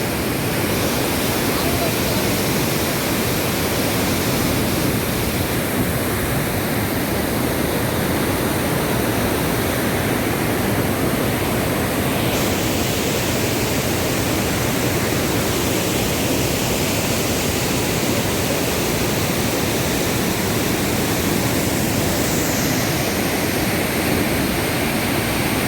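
Waterfall's falling water making a steady, even rush with no breaks.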